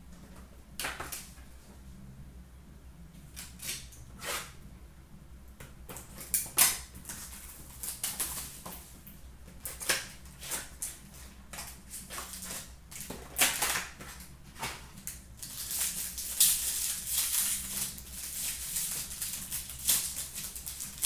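Hands tearing open a hockey trading-card pack and handling the cards: irregular sharp rips, clicks and scrapes, with a denser run of rustling and cards sliding near the end, over a faint steady hum.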